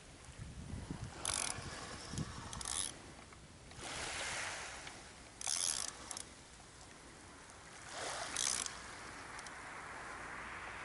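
Short rasping bursts from a surfcasting reel, four in all, over the soft rise and fall of surf washing in.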